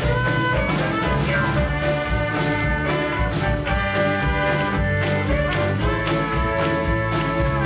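Live band playing an instrumental passage without vocals: violin, acoustic guitar, electric bass, piano, drums and trumpet together over a steady drum beat.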